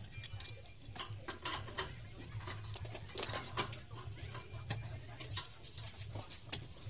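Hand screwdriver working screws into a steel slide-bolt latch on a door post: a run of irregular small clicks and scrapes of metal on metal, over a low steady hum.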